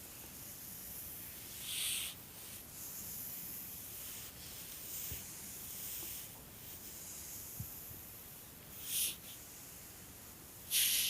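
A sleeping dog breathing: soft breaths through the nose, with three louder exhales, one about two seconds in and two near the end.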